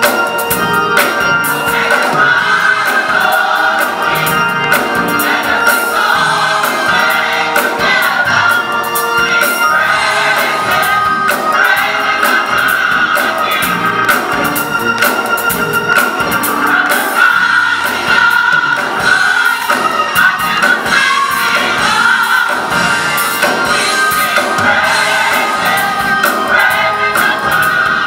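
Gospel choir singing to instrumental accompaniment, with choir members clapping along in rhythm.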